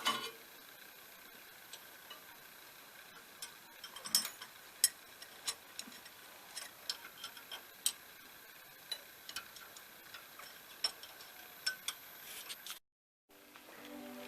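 Irregular metallic clicks and taps of hand tools working on tractor clutch parts, with some louder clinks. Near the end the sound cuts out and background music begins.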